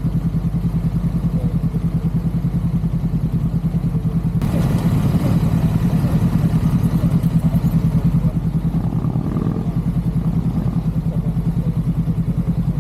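KTM Duke 200 single-cylinder four-stroke engine running with a steady pulsing beat. About four and a half seconds in it gets louder and brighter for around five seconds, as with more throttle, then settles back.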